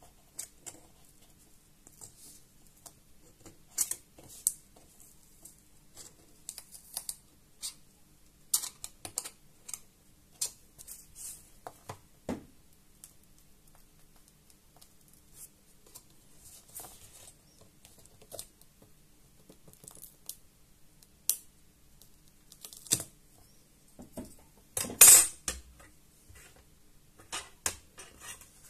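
Irregular small metallic clicks, clinks and scrapes of a screwdriver working small screws and metal mounting brackets on a laptop display panel, with a longer, louder scrape near the end.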